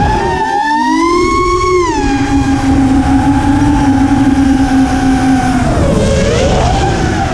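Spedix Black Knight 210 racing quadcopter's brushless motors and propellers whining, heard from the craft itself with a rushing noise underneath. The pitch rises with throttle about half a second in, falls back about two seconds in and holds steady, then dips and climbs again around six seconds in before dropping near the end.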